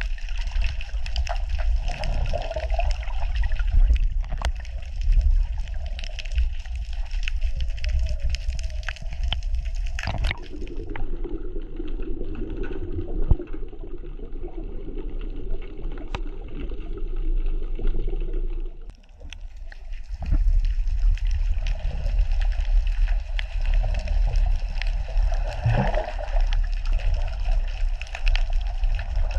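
Underwater sound at a rocky reef: a dense crackle of fine clicks over a low rumble of moving water. About ten seconds in, the crackle fades into a duller, muffled rush of water for several seconds, then it returns.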